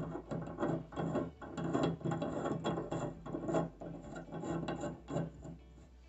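Brass Crane Dialeze hot-water valve stem being screwed by hand into the shower valve body: metal threads turning with a quick run of scraping clicks, about two or three a second, dying away near the end.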